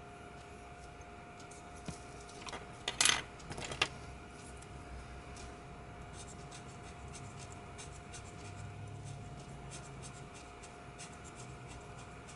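Scratching of drawing strokes on paper, first with a coloured pencil and later with a felt-tip pen drawing short strokes. About three seconds in comes a short burst of clicks and clatter, the loudest sound here, as the pencil is swapped for the felt-tip pen.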